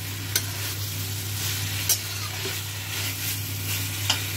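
Pieces of potato, raw banana and raw papaya sizzling in spiced oil in a pan while being stirred, with a steady hiss. A spoon clicks against the pan three times: about half a second in, near two seconds and near the end. A steady low hum runs underneath.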